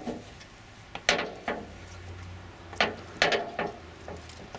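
Shoes knocking and scraping on the metal rungs of a quay-wall ladder as someone climbs it: several separate knocks at an uneven pace, a pair about a second in and a quicker cluster near the end.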